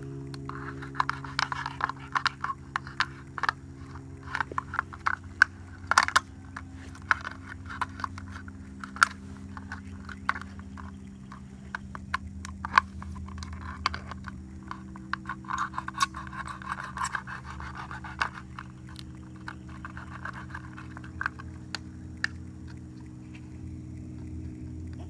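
Knife blade cutting and sawing into a thin plastic soda bottle: irregular crackling, crinkling and scraping of the plastic with sharp clicks and snaps. A steady low hum runs underneath.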